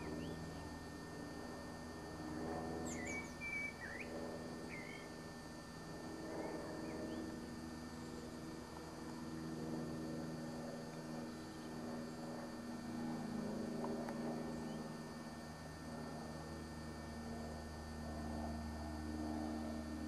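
A few short, high bird chirps about two to five seconds in, over a steady low hum.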